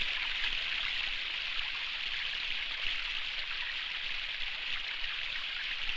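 Steady splashing of water from a park fountain, an even, unbroken hiss.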